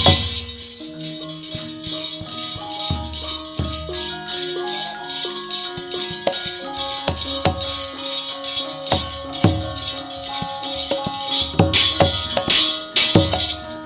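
Javanese gamelan ensemble playing an instrumental piece: metallophones sound steady notes moving step by step, with low drum strokes and a fast run of sharp jingling clashes over them. The clashes grow loudest near the end.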